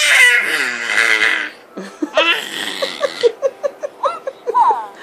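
Baby laughing and squealing: a loud excited squeal at the start, then a run of short rhythmic laughs, about five a second, ending in a couple of high squeals.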